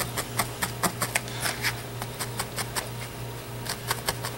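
Felting needle stabbing repeatedly through wool roving into a styrofoam block, punching a wool spot onto the body: a quick run of short crisp clicks, about four or five a second, over a steady low hum.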